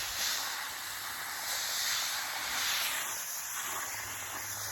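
Water spraying from a garden hose nozzle: a steady hiss that starts suddenly and softens about three seconds in. The nozzle is busted from freezing and does not fully shut off.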